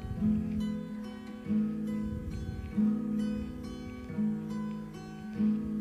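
Background music: acoustic guitar playing sustained chords, a new chord about every second and a quarter.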